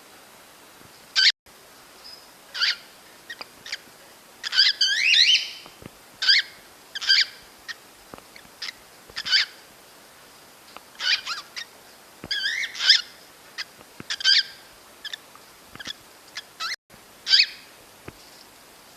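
Cockatiel mating call: a string of short whistled chirps and warbling phrases, repeated every second or so with brief pauses, including a couple of longer warbled runs.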